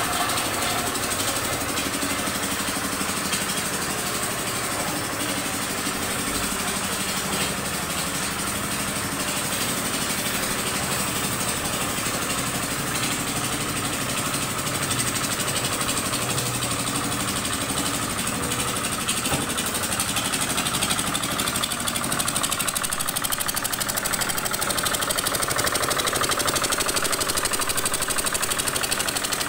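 Small vibratory road roller (baby roller) running steadily while compacting paving blocks: the engine's drone with the rattling vibration of the drum on the blocks, growing a little louder near the end.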